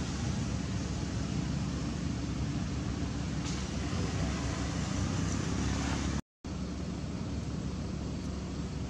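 Steady outdoor background noise, a low rumble with hiss over it, broken by a brief dropout to silence about six seconds in.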